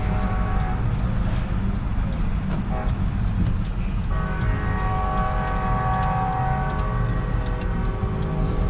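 Diesel pickup truck on the move: a steady low rumble of engine and road noise. About four seconds in, a steady sustained tone with several pitches joins it.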